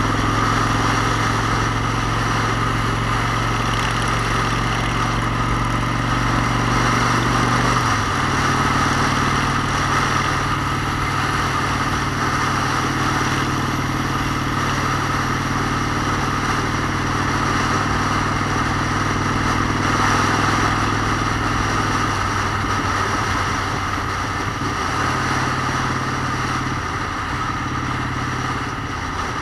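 Motorcycle engine running at a steady speed under way, with road and wind rush. The engine note drops slightly about eight seconds in and becomes uneven after about twenty-two seconds.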